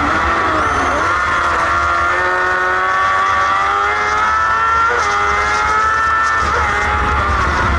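Crosskart engine under racing throttle, heard from the kart's onboard camera. Its pitch dips about a second in, climbs again, and changes abruptly twice in the second half.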